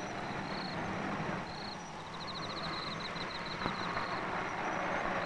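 A car approaches along a rough road, its engine and tyres running as a steady low rumble that grows louder over the last couple of seconds. High, rapid chirping of insects repeats over it.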